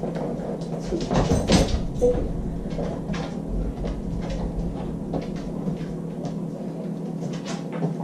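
Scattered light knocks and clicks, busiest about one to two seconds in: a small plastic water bottle set down on the floor and nosed by a dog. A steady low hum runs underneath.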